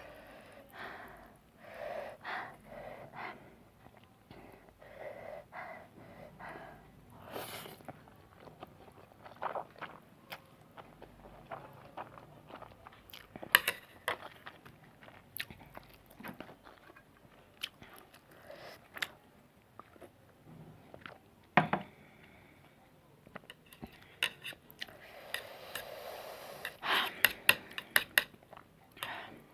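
A person chewing spicy noodles close to the microphone: a run of wet mouth clicks and smacks, thickening into a dense burst of eating sounds near the end.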